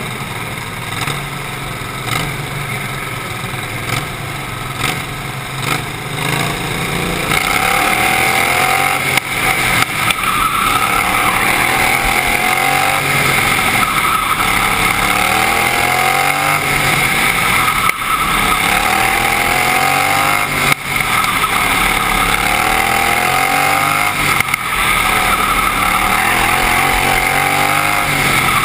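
Outlaw racing lawnmower's engine, heard from on board: steady at lower speed at first, then from about seven seconds in running louder, rising in pitch and dropping back again roughly every two seconds as it accelerates out of each turn and lifts for the next.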